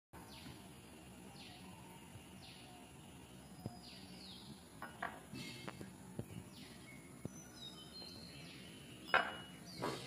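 A bird calls faintly in the background: a short falling whistle repeated about once a second. Light clicks and taps sound now and then, and the two loudest come near the end.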